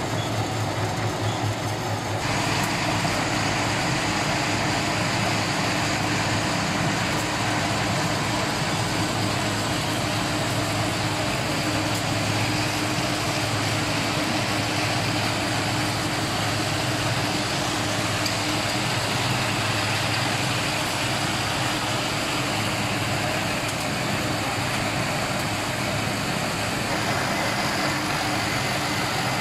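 Steady running noise of a twin-screw extrusion compounding line: a constant electric-motor and gearbox hum under a broad machine hiss, which grows fuller about two seconds in.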